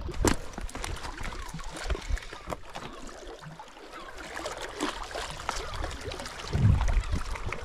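Small waves lapping and splashing against shoreline rocks, with scattered irregular knocks and scuffs of handling on a body-worn camera. A gust of wind buffets the microphone near the end.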